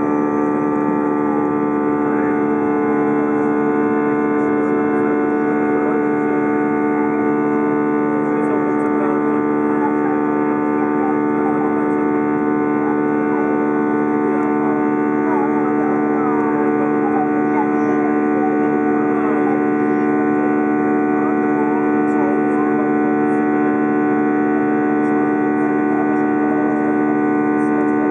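Steady engine drone inside an Airbus A321 cabin during the climb after takeoff: a constant hum of several steady tones over a rushing background.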